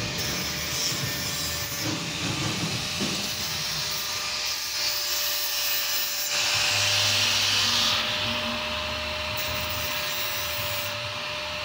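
Electric angle grinder running with a steady whine while grinding against a motorcycle's steel frame, the rasping grind growing louder from about six to eight seconds in.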